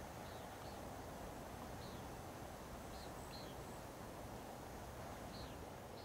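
Birds chirping faintly, short high calls every second or so, some falling in pitch, over a steady low rush of gently lapping water.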